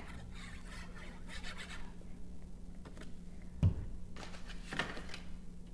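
Cardstock pieces being handled and rubbed together, soft scratching and rustling of paper, with one sharp click a little past halfway.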